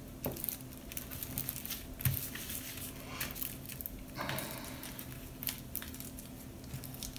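Tissue paper and crumpled aluminium foil being pressed and smoothed by hand: soft scattered crinkling and rustling with small clicks and taps, one longer rustle about four seconds in.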